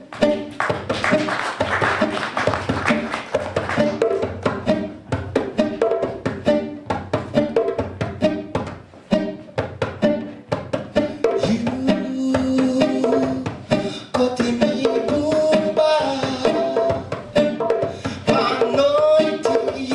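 Live acoustic guitar with hand drums (djembes) beating a quick rhythm.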